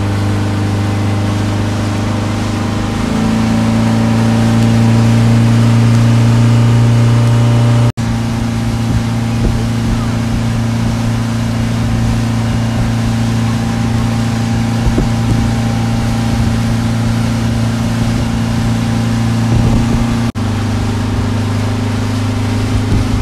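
Boat outboard motor running under way, a steady drone that speeds up, rising in pitch and growing louder, about three seconds in. The sound breaks off for an instant twice, about eight seconds in and near the end.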